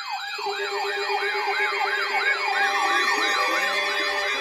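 Electronic sirens sounding in quick, repeated falling sweeps, about three a second. A steady lower tone joins about half a second in, and more sirens overlap, gliding up and down, toward the end.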